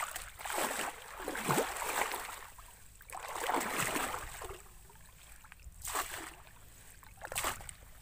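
Shallow muddy puddle water being swished and stirred: two long sloshing surges in the first half, then two short splashes near the end.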